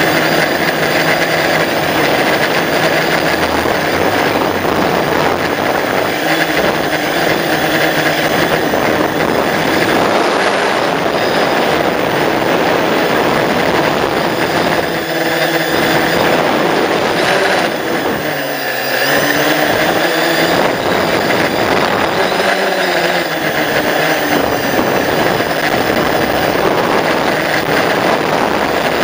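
Multirotor drone's electric motors and propellers buzzing loudly, heard from the drone's own onboard camera. The pitch shifts up and down a few times past the middle as the throttle changes in flight.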